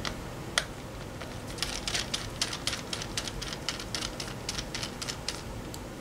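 00 Phillips precision screwdriver backing tiny screws out of a laptop's metal case: one sharp click, then a run of faint quick clicks, about four or five a second.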